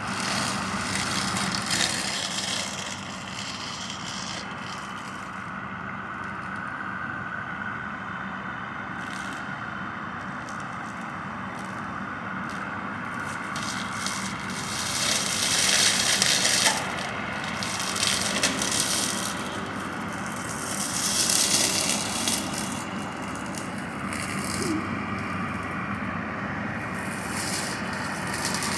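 Tractor engine running steadily, with swells of louder noise about halfway through and again later.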